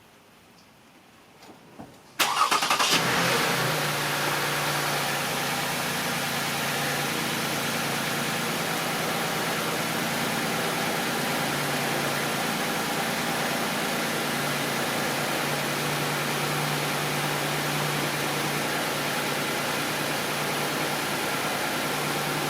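Lexus RX350's 3.5-litre V6 starting about two seconds in, on the first start after an oil change: a brief flare of revs as it catches, then settling into a steady idle.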